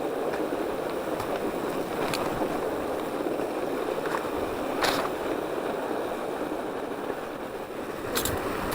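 Norco Bigfoot 1S fat bike riding a packed snow trail: a steady rushing noise of the fat tyres rolling over snow, with a few short knocks from the bike about 2, 5 and 8 seconds in.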